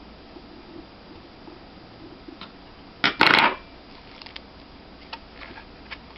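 Small metal and plastic parts of a laptop hard drive and its caddy being handled: scattered light clicks, with one short loud clatter about three seconds in.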